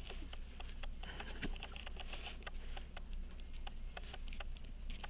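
A pocket watch movement ticking evenly, about five beats a second, as its balance runs on a wound mainspring, with light scratching of handling at the bench.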